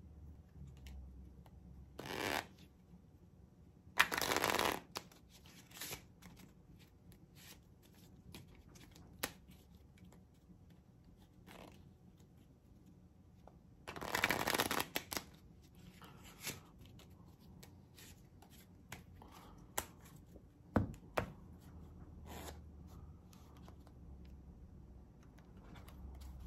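A deck of playing cards being riffle-shuffled by hand on a padded close-up mat. There is a short riffle about two seconds in, a louder one about four seconds in and another about fourteen seconds in, with light clicks and snaps of cards being handled and squared in between.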